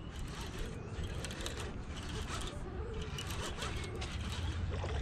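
Fishing reel being cranked to bring in a hooked fish, its gears giving a run of quick small clicks over a low rumble.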